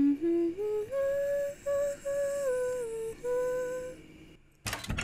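A voice humming a slow tune, the notes stepping upward and then gliding down. Near the end comes a short clatter of knocks.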